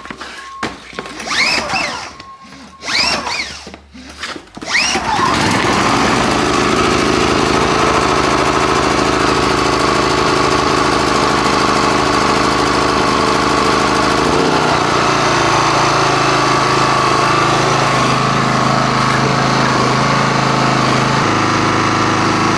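Maxpeedingrods MXR3500 inverter generator's small gasoline engine being pull-started cold on choke: a few short whirring pulls of the recoil starter, then it catches about five seconds in and runs steadily. Its engine note shifts twice as it settles, once partway through and again near the end.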